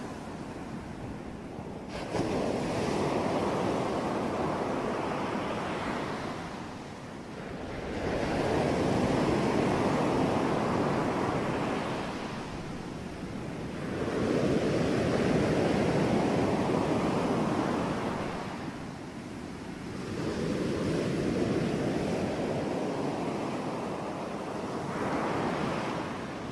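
Ocean waves breaking and washing up the shore, surging and receding about every six seconds, five surges in all.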